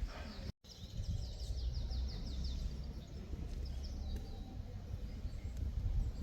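A small bird sings a quick trill of about a dozen falling high notes lasting under two seconds, over a low steady rumble.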